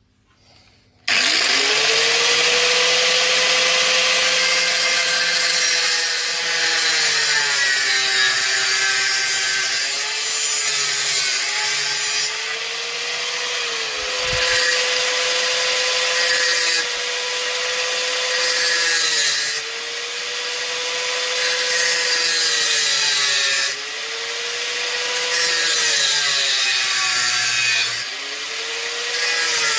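Angle grinder starting about a second in and cutting saw-blade steel, its motor whine sagging in pitch each time the disc bites and recovering between passes.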